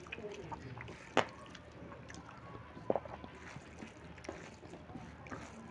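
Hand squeezing and mixing moist rice and onion greens on a steel plate: soft squelching with scattered light clicks of fingers against the metal, and two sharper taps, about a second in and near the middle.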